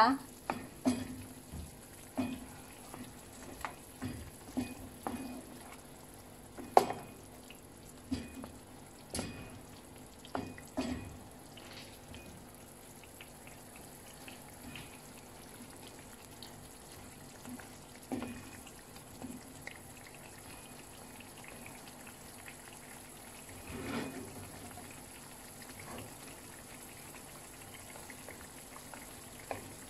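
Pieces of pork hock being turned over in a pan of simmering braising liquid. A utensil knocks and clatters against the pan many times in the first dozen seconds, then only now and then, over the steady bubbling of the liquid.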